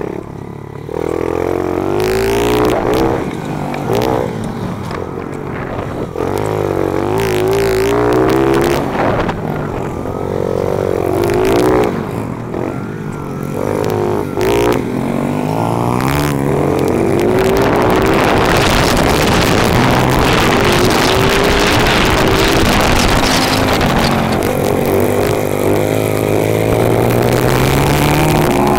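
Small four-stroke single-cylinder pit bike engine, heard from the rider's helmet, revving up and backing off again and again through the turns and jumps, with frequent knocks and wind rush on the microphone. From about halfway it is held at high revs, steadier and louder.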